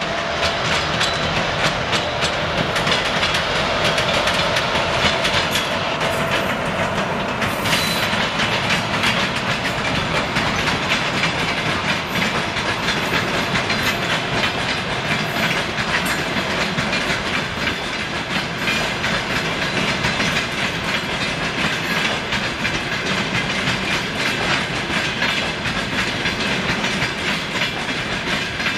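Passenger train hauled by a ChS4 electric locomotive rolling through a station as it arrives. A steady clatter of wheels over the rail joints comes as a constant run of clicks.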